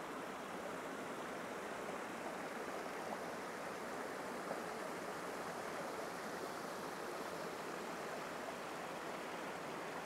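A fast mountain stream rushing steadily over rocks in a small cascade.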